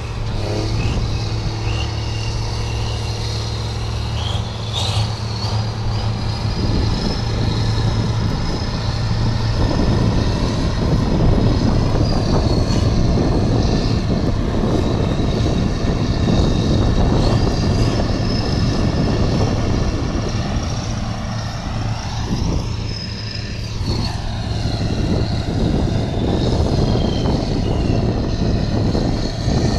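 Heavy diesel engines of a Kirovets K-700A tractor and a Cat Challenger MT765 track tractor working hard under load, pulling a bogged trailer out of the mire. A steady, loud low drone carries a faint high whine that rises and falls with the revs.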